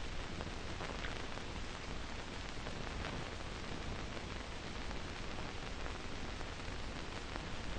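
Steady hiss with a few faint crackles: the background noise of an old film soundtrack.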